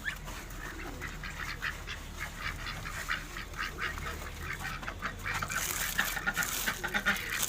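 Domestic ducks quacking, short calls following one another, getting busier near the end.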